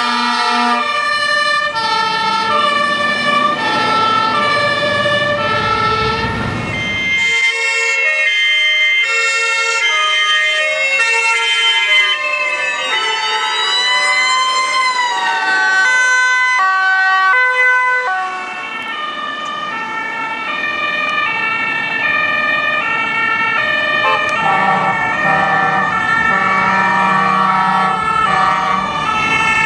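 German two-tone fire-truck sirens (Martinshorn) from several fire engines in turn, stepping back and forth between a high and a low note. A truck's engine rumbles under the siren in the first few seconds, and for a few seconds in the middle the siren notes slide up and down in pitch.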